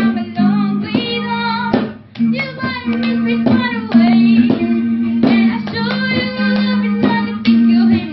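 Guitar strummed in a steady rhythm while a voice sings the melody over it.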